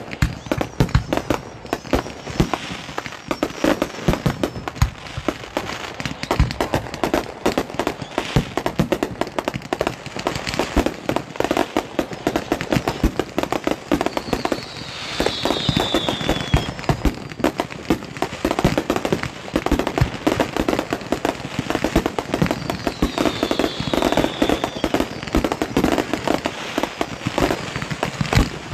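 Professional fireworks display firing a dense, continuous barrage of bangs and crackle, many reports a second without a pause.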